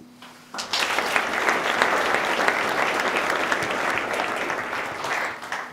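Audience applauding: a dense patter of many hand claps that starts about half a second in and fades out near the end.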